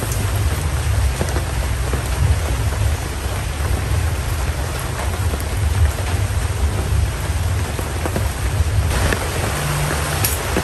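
Heavy rain pouring steadily, a dense hiss with a continuous low rumble underneath.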